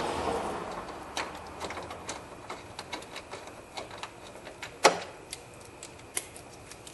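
Scattered light clicks and taps of a plastic battery bracket being fitted back into place by hand, with one sharper click about five seconds in.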